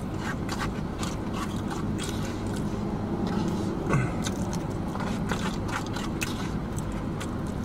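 Close-miked chewing and wet mouth smacks from eating a burrito bowl, with clicks of a plastic fork scraping food from a fiber bowl.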